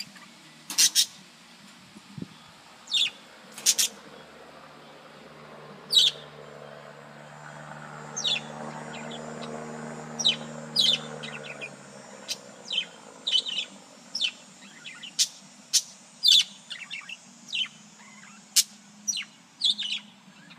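Pet parakeets chirping in short, sharp calls, one every second or so. In the middle a low steady hum swells and then fades away.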